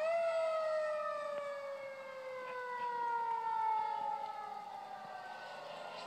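A dog howling with a fire truck siren: a long wail that climbs quickly at the start, then slides slowly down in pitch and fades over about four seconds.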